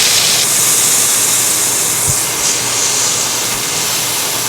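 Steak searing in very hot oil in a frying pan, a loud steady sizzle.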